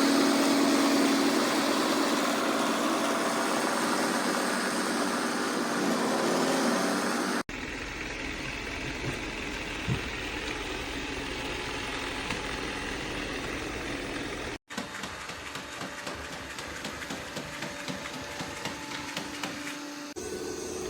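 iRobot Roomba Plus 405 vacuum-mop robot and dock running with a steady motor whir and a constant hum. The sound changes abruptly twice, at about a third of the way through and again past the middle, and once more near the end, as separate clips are cut together.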